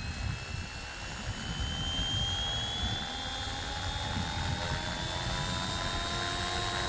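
RC helicopter spooling up on the ground before lift-off: a motor whine and rotor sound, its pitch rising slowly and steadily as the head speed builds.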